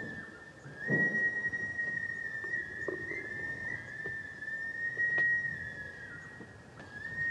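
Whistling: a slow line of long held high notes that slide gently up and down between pitches, with a short break near the end.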